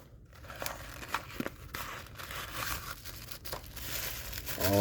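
Blind-bag wrapper being torn open and crinkled by hand, an uneven run of crackles and small clicks.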